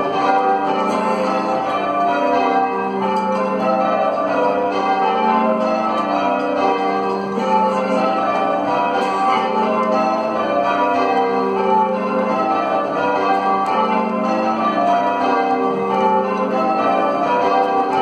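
Church tower bells being change-rung by ringers pulling the ropes: a steady, unbroken stream of overlapping bell strikes, each bell ringing on into the next.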